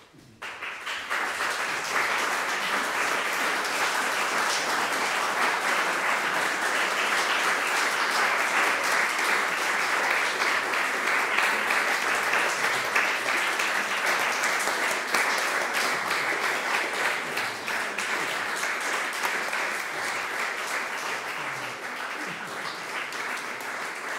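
Audience applauding, starting suddenly and reaching full strength within about two seconds, then easing off a little near the end.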